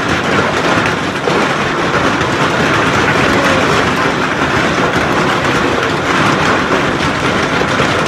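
Hail and heavy rain pelting the wet concrete ground and walls: a loud, dense, steady hiss of many small impacts.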